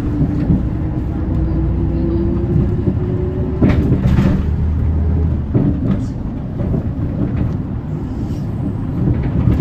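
Hyundai Green City diesel bus running under way, its drivetrain whine rising steadily in pitch for about three and a half seconds as it gathers speed over a deep engine rumble. A sharp knock comes about three and a half seconds in and another about two seconds later.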